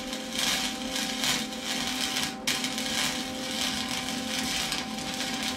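Arc welding crackling and sizzling as a hairline crack in a go-kart's steel frame tube is welded up, the arc breaking off briefly about two and a half seconds in before striking again. A steady hum runs underneath.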